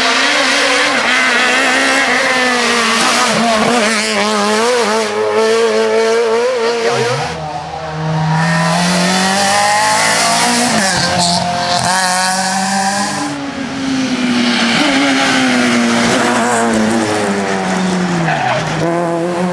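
Rally cars on a tarmac stage, one after another: a Renault Clio, then a Renault Twingo from about seven seconds in, then a Peugeot 207 from about two-thirds of the way through. Each engine is revving hard, its pitch climbing and dropping with throttle, gear changes and braking into the bends.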